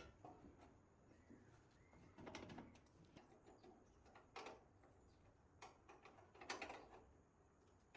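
Near silence with faint, scattered clicks and light knocks, a few seconds apart.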